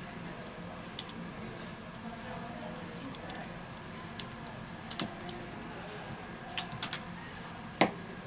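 Scattered light clicks and taps as a disassembled Huawei Honor 8 smartphone's small parts are handled and pressed into place, about nine in all, the loudest near the end, over a steady low hum.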